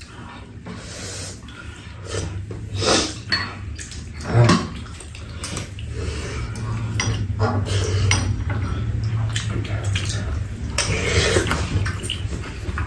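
Metal spoons clinking and scraping against a frying pan and bowls during a meal of stir-fried octopus and soup, with wet slurping and eating sounds between the clinks. A steady low hum runs underneath, louder from about six seconds in.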